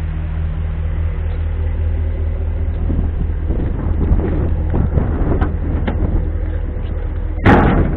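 A vehicle engine idling steadily, with footsteps crunching on gravel from a few seconds in. A single loud knock comes near the end.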